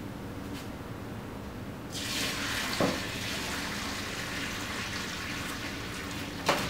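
Hot water pouring out of a pot of boiled potatoes into a colander in the sink, starting suddenly about two seconds in, with a knock partway through and a clunk near the end as the pot is set down.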